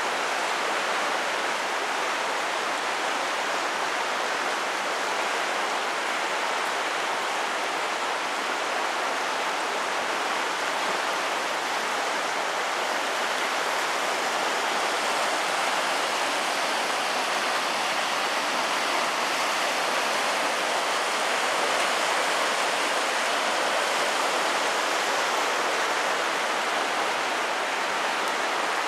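Steady, even rushing noise like running water, holding level throughout without footsteps or voices standing out.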